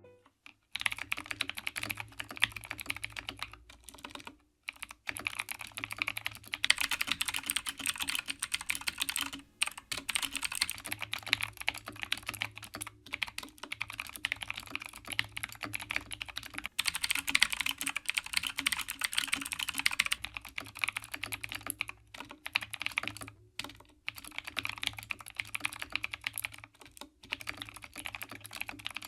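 Continuous fast typing on a modded Redragon K552 mechanical keyboard, its lubed Outemu Blue clicky switches clacking in a dense stream with a few brief pauses. A t-shirt stuffed in the case stands in for dampening foam.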